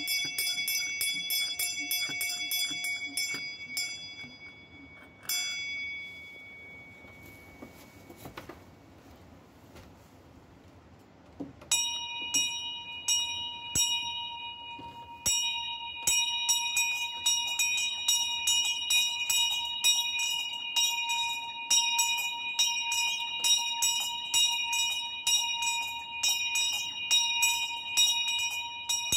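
Set of small high-pitched tuned bells (f''', b''', c'''', d-flat'''') struck by hand in a quick, continuous run of strokes, each note ringing on. The ringing breaks off about four seconds in, with one lone stroke a second later, pauses for about six seconds, then picks up again about twelve seconds in and carries on briskly.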